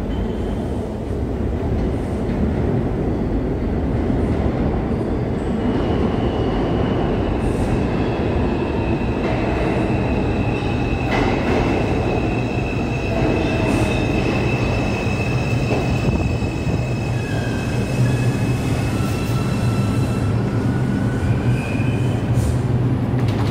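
R142 subway train pulling into an underground station and slowing to a stop. A steady rumble grows as it nears, with a high, steady wheel squeal through most of the approach that dies away near the end.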